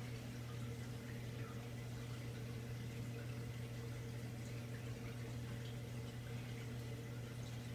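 Faint small wet clicks of a newborn Senegal bushbaby lapping milk from a syringe tip, over a steady low hum.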